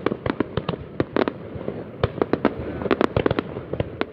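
Aerial fireworks bursting: a rapid, irregular string of sharp bangs and cracks, thickest about three seconds in, over a continuous background of more distant bursts.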